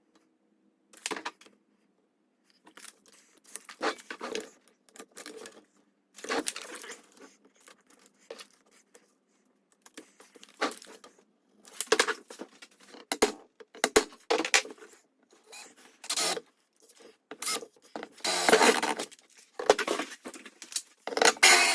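Irregular clinking, rustling and scraping of small parts and hardware being handled, in short bursts that come more often and louder toward the end.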